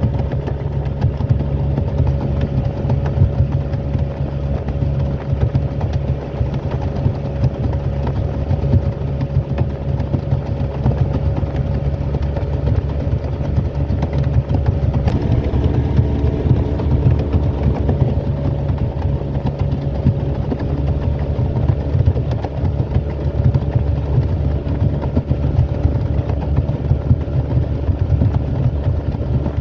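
Boat motor running steadily, its tone changing about halfway through.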